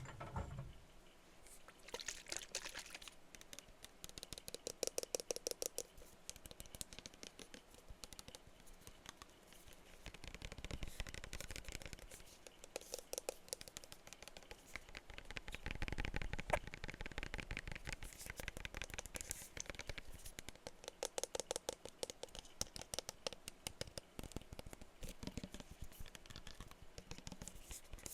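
Rapid tapping on perfume bottles: fast runs of sharp ticks that shift in pitch as different bottles or parts are tapped.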